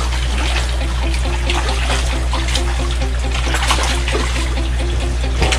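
Water trickling and splashing in an aquaponics fish tank: the inflow pipe pouring into the water and large fish breaking the surface in short splashes, over a steady low hum.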